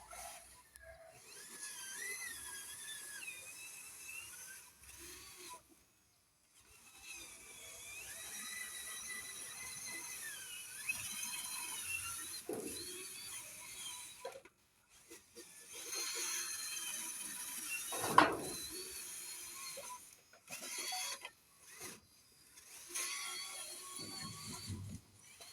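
Small electric gear motors of a radio-controlled toy whining in start-stop runs, their pitch rising and falling with load, with a sharp knock about two-thirds of the way through.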